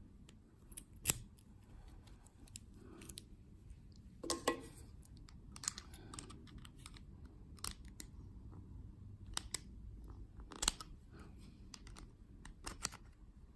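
An American Lock 1100 padlock being handled and locked back up: scattered small metal clicks and clacks, the sharpest about a second in, near four seconds and near eleven seconds.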